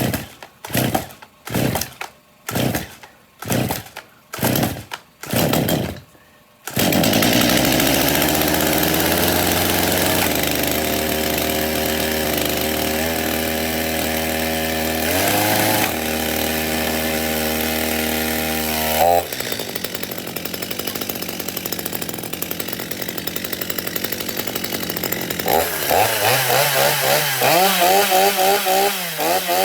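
Stihl MS230 two-stroke chainsaw pull-started cold after two years of storage: about seven quick pulls of the starter cord, then the engine catches about six seconds in and runs steadily. About two-thirds of the way through it settles to a lower idle, and near the end the throttle is blipped several times, revving up and down.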